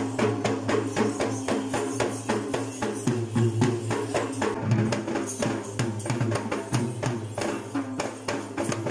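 Yak bera, the Sri Lankan low-country double-headed drum, beaten by hand in a quick, dense rhythm of many strokes a second.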